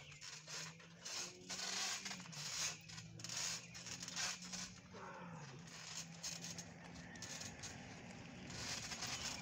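Soft thumps and rustling of people moving and landing on a trampoline mat, over outdoor hiss, with a steady low hum beneath that dips in pitch twice and fades out near the end.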